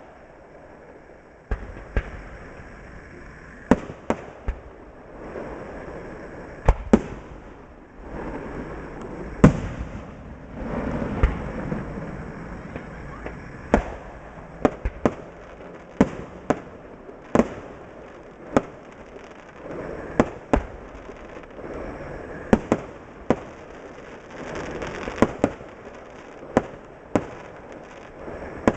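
Fireworks display: shells bursting in sharp bangs at an irregular pace, about twenty in all, some in quick runs of two or three, over a steady background noise.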